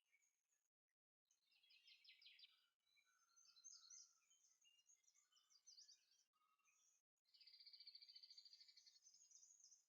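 Faint birdsong: high chirps and quick trills, with a long, fast, even trill in the last two and a half seconds.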